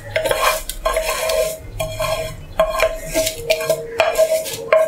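A pan and a metal utensil scraping and clinking against a stainless steel plate as roasted vermicelli is emptied onto it. There are about ten sharp clinks and scrapes, and the steel rings briefly after each.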